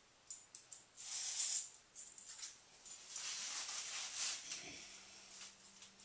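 Faint pencil scratching on a painted wall along a ruler, in short strokes with light clicks and rustling as the ruler and pencil are handled.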